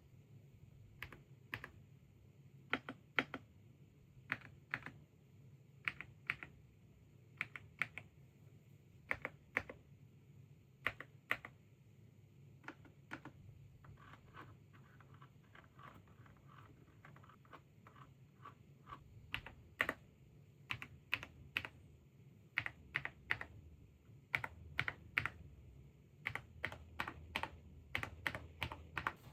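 Keys of an Akko 5098B mechanical keyboard being typed on: irregular clacking keystrokes, some single and some in quick runs.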